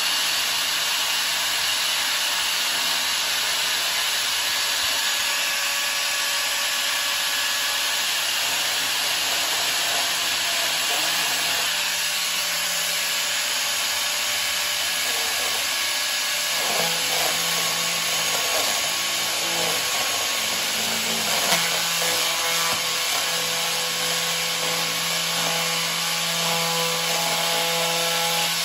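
Angle grinder fitted with a paper cutting disc, running and cutting into a clear plastic container: a steady whir and rasp. About halfway through, a wavering lower hum comes in as the disc bites deeper into the plastic.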